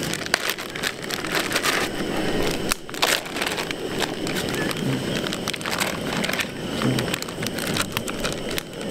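Hot olive oil crackling and sizzling in a stainless pot on a small butane stove as raw chicken pieces go in, with a plastic zip-lock bag crinkling as it is opened and handled.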